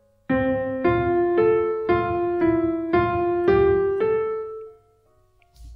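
Piano playing a short phrase of eight evenly spaced notes, about two a second, at a slow steady tempo as a beginner's exercise; the last note rings on and fades away.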